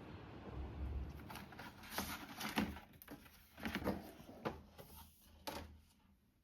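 Handling noise: a series of about six short knocks and rustles over a low rumble that fades toward the end.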